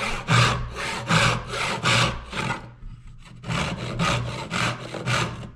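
Brass-backed dovetail saw cutting through a small block of walnut in quick back-and-forth strokes, with a short pause about two and a half seconds in.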